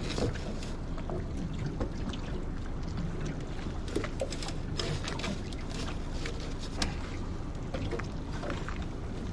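Water slapping and splashing around a small boat on the bay, with many short sharp splashes and knocks over a steady low rumble.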